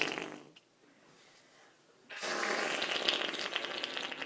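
The tail of a fart noise dying away, then a near-silent pause. A scratchy, crackly noise starts suddenly about two seconds in.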